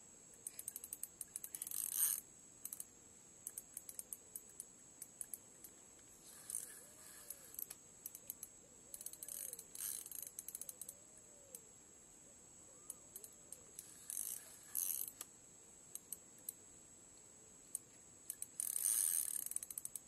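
Fishing reel clicking while a hooked fish is fought: scattered single clicks with five short runs of rapid, denser clicking.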